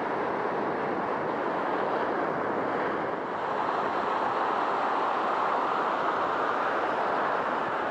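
Sea surf washing on the shore: a steady rush that swells a little about three and a half seconds in.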